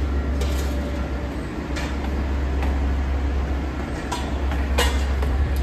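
Outdoor ambience on a walk: a steady low rumble under a light hiss, with about five short sharp clicks or knocks scattered through.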